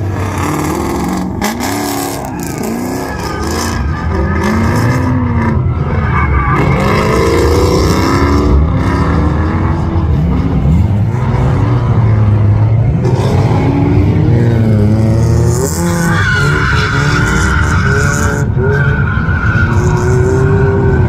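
Drift car on track, its engine revving up and down again and again as the tyres squeal and skid through the slides.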